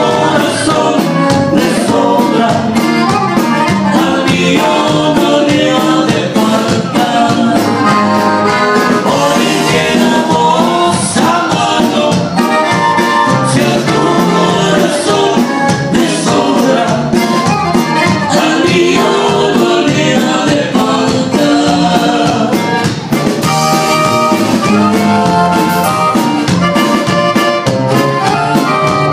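Live conjunto band playing, a Roland digital accordion leading the melody over a drum kit with cymbal hits and guitar.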